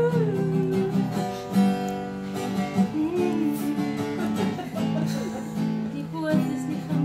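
Steel-string acoustic guitar being strummed, chords ringing and changing every second or two.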